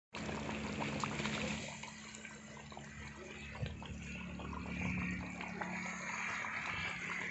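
Chicken curry simmering in a large aluminium pot, a soft steady bubbling with scattered small pops.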